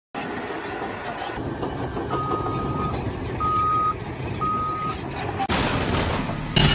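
A heavy vehicle's reversing alarm beeping three times, about a second apart, over steady machine and site noise, with a burst of hiss near the end.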